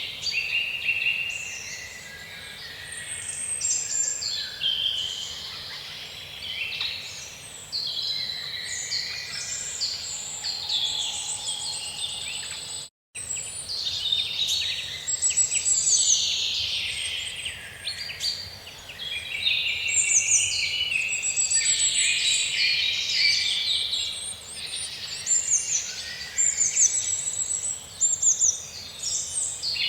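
A dense chorus of many songbirds chirping, trilling and whistling over one another, cut by a split-second gap of silence about halfway through.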